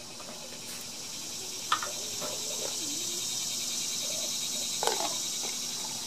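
Steady high chirring of insects, likely crickets, with water being poured from a plastic bottle into a paper cup, a soft pour that grows louder through the middle, and a couple of small clicks.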